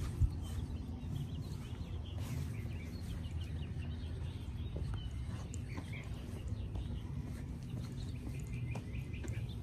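Small birds chirping, with short scattered calls throughout, over a steady low rumble of wind on the microphone.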